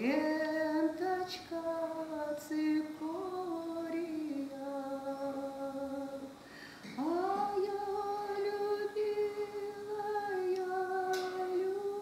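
A woman singing a slow melody in long held notes. There are two phrases, with a short break for breath about six seconds in.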